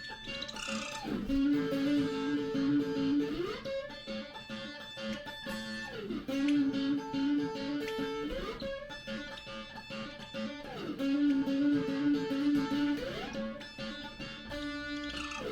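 Background music: a plucked guitar tune with sliding notes, repeating a short phrase.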